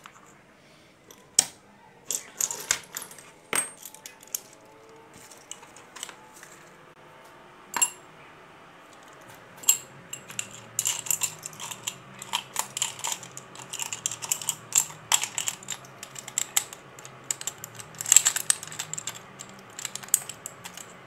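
Small metal connector parts clicking and clinking as they are handled and fitted together: a few separate sharp clicks at first, then a busy run of quick metallic clicks and rattles from about halfway through.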